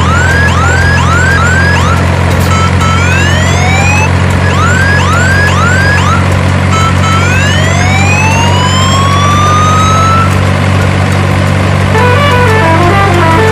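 Dubbed-in truck engine sound effect: a steady, loud low drone with repeated rising whistles over it, some short and some long. Electronic background music comes in near the end.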